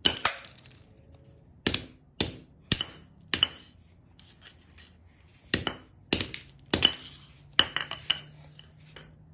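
A steel hammer striking a VEX IQ smart motor's plastic casing on a concrete floor to break it open: about a dozen sharp clinking blows in two runs, with a pause of about two seconds between them.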